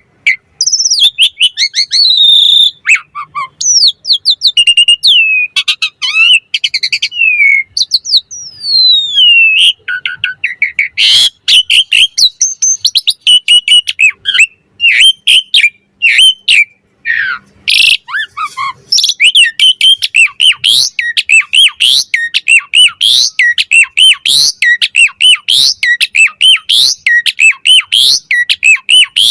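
Asian pied starling singing a varied song of whistles, sliding notes and chirps, turning in its second half into a quick run of repeated chirps.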